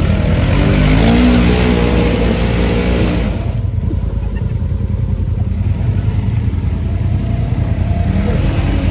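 Polaris General 1000 side-by-side's engine revving hard for about three and a half seconds with a loud rushing noise as it works in deep mud, its pitch climbing, then dropping back to a lower steady run.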